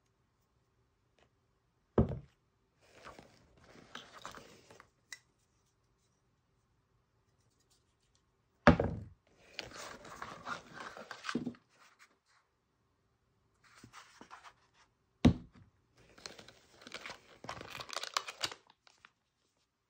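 Bottles set down one by one on a marble tabletop: three sharp thunks about six and a half seconds apart. Each is followed by rustling and crinkling as the hand rummages in the plastic wash bag for the next item.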